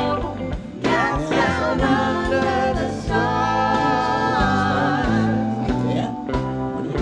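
Background music: a soul-style song with a singer's voice over guitar and drums.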